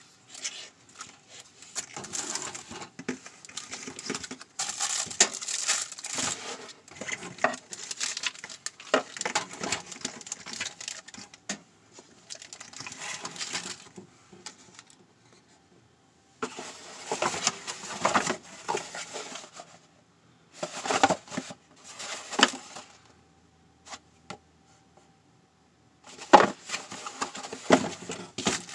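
Handling noise from the unboxing: plastic packaging crinkling, with clicks and knocks as small LED light panels on mini tripod stands and their cardboard box are moved about. It comes in bursts with short pauses, and the loudest knocks are near the end.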